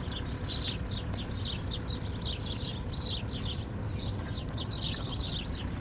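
Small birds chirping, a quick run of short falling chirps several times a second, over a steady low background rumble.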